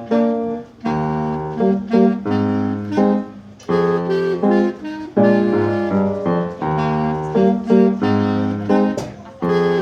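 A solo wind instrument playing a melody in held notes with piano accompaniment.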